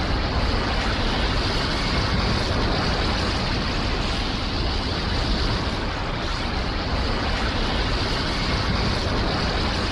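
A steady, rushing rumble of noise with no clear tone or rhythm: an anime sound effect.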